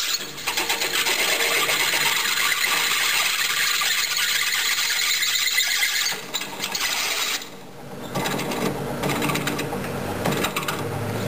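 Drill press driving a 3/8-inch cobalt bit through stainless steel plate: a harsh, continuous scraping grind of the bit cutting metal. The scrape drops away about six seconds in and again around eight seconds as the bit comes out of the cut, leaving the drill press running with a low hum. The spindle is turning at about 480 rpm, still a little too fast for stainless.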